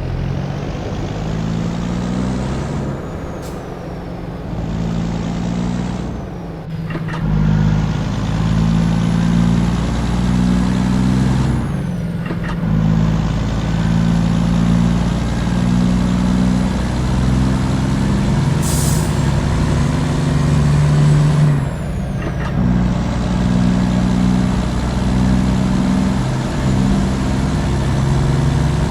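Volvo FH truck engine with a straight-through exhaust, rumbling loudly, its pitch moving up and down in steps. The sound drops off briefly about 3, 7, 12 and 22 seconds in, and a short hiss comes about 19 seconds in.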